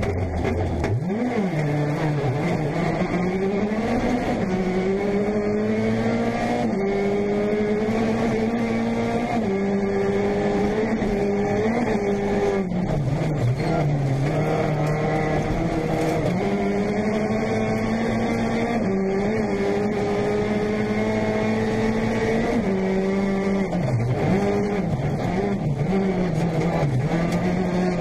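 Peugeot 208 T16 R5's turbocharged 1.6-litre four-cylinder at full rally pace, heard from inside the cockpit: the engine note repeatedly climbs and drops sharply as it changes up through the gears, with a few quick dips and blips near the end as it slows for a corner. Steady tyre and road noise runs underneath.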